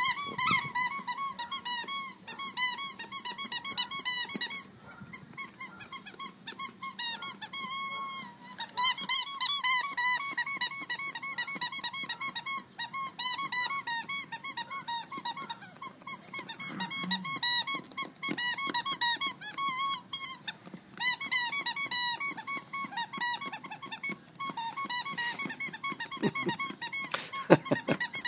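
Dog's squeaky toy being chewed, squeaking rapidly over and over in long runs of short squeaks broken by brief pauses.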